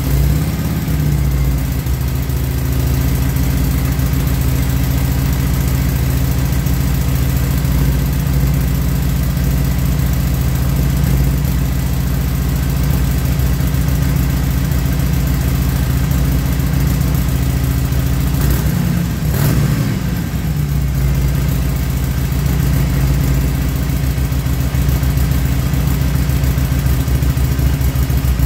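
Harley-Davidson V-twin engine idling steadily in neutral just after starting, breathing through a newly fitted Vance & Hines VO2 air cleaner. Once, about two-thirds of the way through, its pitch briefly rises and falls.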